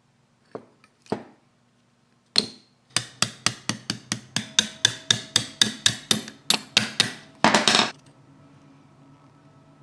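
Metal tool work on a motorcycle brake caliper: a few scattered knocks, then a fast run of about twenty sharp hammer taps on metal, some five a second, ending in a half-second burst of noise. A low steady hum follows near the end.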